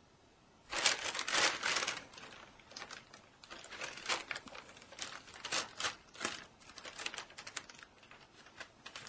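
Thin plastic bag crinkling as a hand and the cat inside it play with the bag. A loud burst of crinkling starts about a second in, then the bag rustles in shorter irregular crackles.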